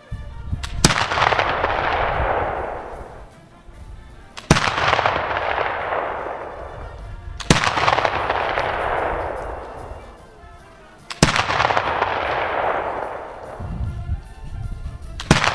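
Five black-powder shots from a flintlock Baker rifle, one every three to four seconds. Each is a sharp crack followed by a long rolling echo that fades over two to three seconds.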